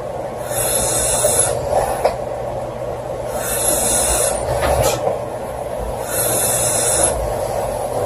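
A girl snoring loudly in her sleep. Each breath brings a hissing rush of air about a second long, three times, roughly every three seconds.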